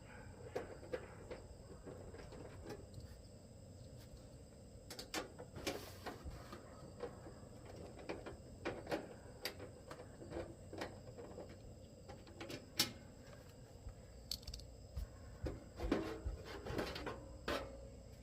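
Screws being backed out and the sheet-metal side cover of an air-conditioner condenser unit being handled and lifted off: scattered clicks, taps and light metal rattles, with the sharpest knock about two-thirds of the way through.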